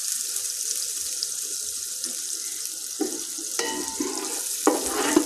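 Butter melting and sizzling with a steady hiss in a pot over a very low flame, with a few light knocks of a utensil on the pot in the second half.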